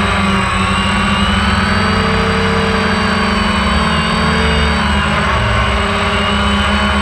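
DJI Phantom 1 quadcopter's electric motors and propellers buzzing loudly in flight, heard close up from the camera on board. Several whining pitches dip and rise together as the drone manoeuvres.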